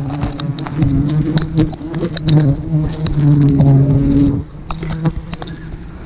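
Swarm of wild honeybees buzzing close by in a steady loud hum that fades about four seconds in, over scattered sharp snaps and crackles of handling in the brush.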